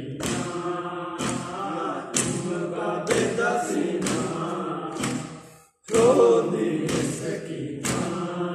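Men's voices chanting a noha, a Muharram mourning lament, over hands striking bare chests in unison about once a second (matam). The sound cuts out briefly about five and a half seconds in, then the chant and strikes resume.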